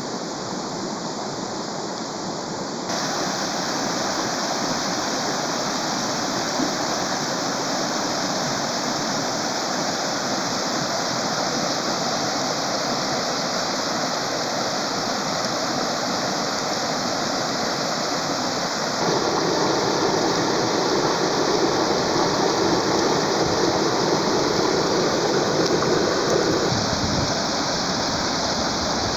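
Steady rush of flowing water, with no voices. The sound changes abruptly about three seconds in and again about two-thirds of the way through, growing louder and fuller, then eases back near the end.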